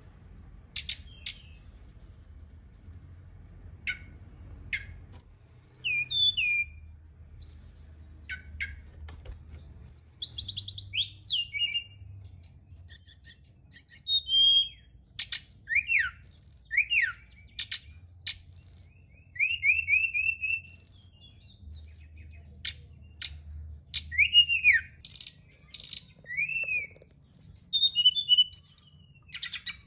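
SRDC songbird singing in bursts of quick high chirps, short trills and whistled notes that slide down or up, repeated every second or two: song of the kind played as a lure to get a kept bird singing. A faint low hum lies underneath.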